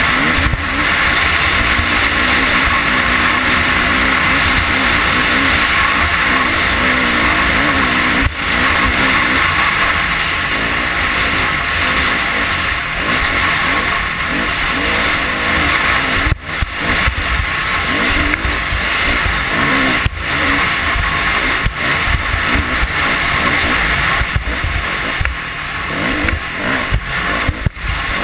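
Off-road motorcycle engine running hard across sand, its note rising and falling with the throttle, with heavy wind and riding noise over the camera and a few brief drops in level.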